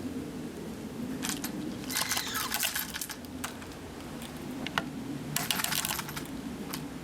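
Metal chain and small feeding cup rattling and clinking in three short bursts, as a monkey pulls the cup up on its chain to reach the food.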